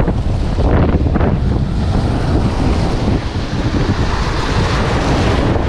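Waves breaking and washing over the boulders of a rock jetty, under steady wind rumble buffeting the microphone.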